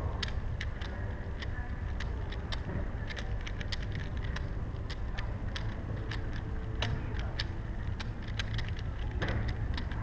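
Plastic Rubik's cubes clicking and clacking as they are caught and passed hand to hand and turned one-handed: an irregular run of sharp clicks, several a second, over a steady low hum.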